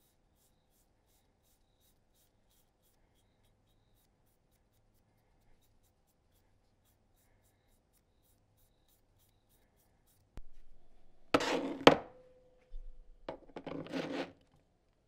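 Near silence for about ten seconds, then handling noise from the wooden tool handle and tools on the bench: rubbing and clatter, a sharp knock with a short ring after it about twelve seconds in, then more rubbing and clunks.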